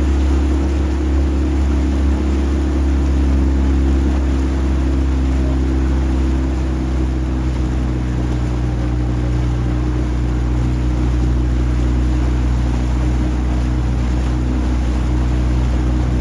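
A motorboat's engine running at a steady speed, a constant low hum of even pitch, over the wash of water.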